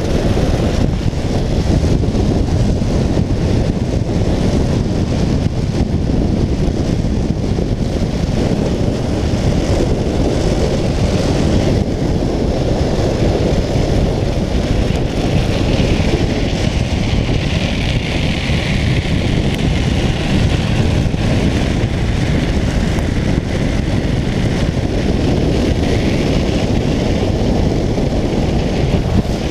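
Speed trike rolling fast on asphalt: heavy wind noise on the camera microphone mixed with the rumble of the wheels on the road.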